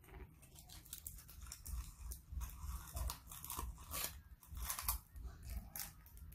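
Irregular crinkling and rustling from hands handling things on a table, with several sharp crackles, over a steady low hum.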